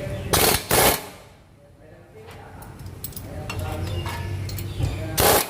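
Pneumatic impact wrench (air gun) fired in short trigger bursts on the shock absorber's mounting bolts: two quick bursts about half a second in and another two near the end.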